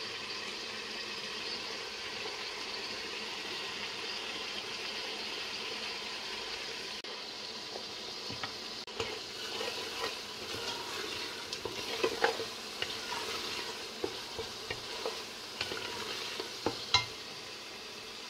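Tomato-and-onion masala sizzling steadily in hot oil in a stainless steel pot. From about halfway a spatula stirs it, scraping and knocking against the pot in scattered sharp clicks.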